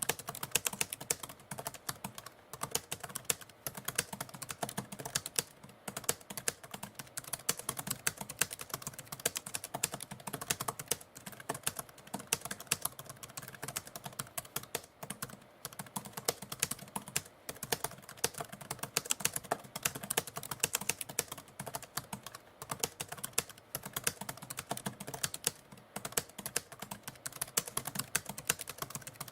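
Typewriter keys struck in rapid, continuous typing, with a few brief pauses.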